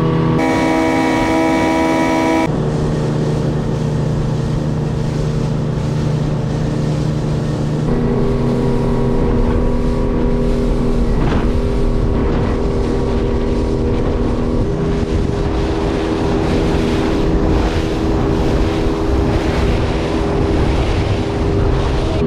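Fishing boat's engine running steadily under way, with water and wind noise over the hull. The engine tone shifts suddenly a few times.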